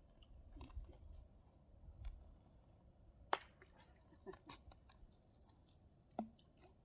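Faint, scattered clicks and crackles over near silence, the sharpest click about three seconds in.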